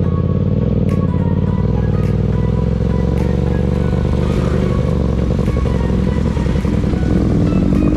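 Motorcycle engine running steadily at low speed, heard close from the rider's seat, with background music over it.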